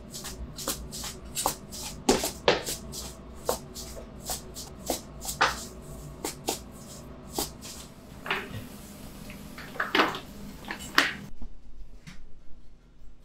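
Irregular sharp clicks and taps, about two or three a second, some louder than others, from hands working over a table of shaped bread dough; they drop away abruptly about eleven seconds in.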